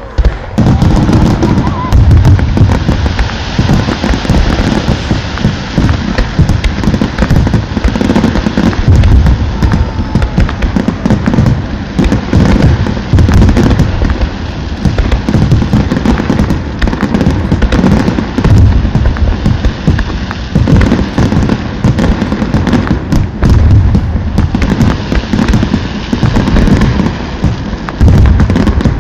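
Fireworks display: a steady barrage of booming bursts and crackles with no let-up.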